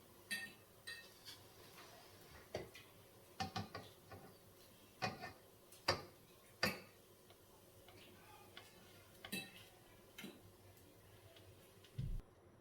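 Kitchen utensils clicking and tapping against cookware: about a dozen light, irregularly spaced clicks and a short low thump near the end.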